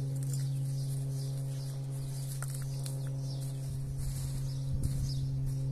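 A succulent's root ball is pulled out of a plastic pot: crumbling potting soil and the pot being handled, with a few soft dull knocks about four to five seconds in, over a steady low hum.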